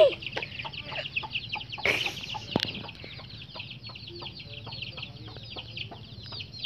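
Free-range village chickens clucking softly under a continuous run of quick, high cheeping calls, with one brief louder call about two seconds in.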